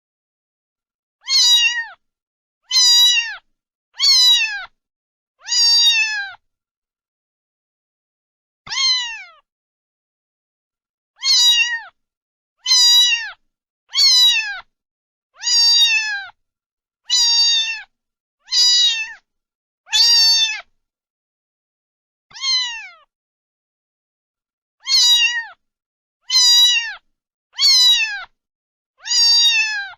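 Domestic cat meowing over and over: about seventeen short meows, each about half a second long and falling in pitch, separated by dead silence.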